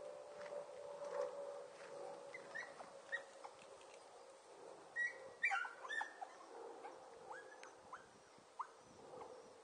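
Hunting dogs yelping in short, rising cries as they chase a rabbit through brush. The yelps are scattered at first, then come thick and loudest about five to six seconds in, and thin out again near the end.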